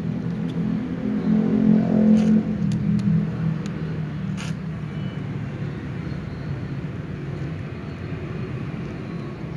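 A motor vehicle engine running steadily, swelling louder for a second or two about a second in. Over it come a few sharp clicks as a cat crunches dry kibble.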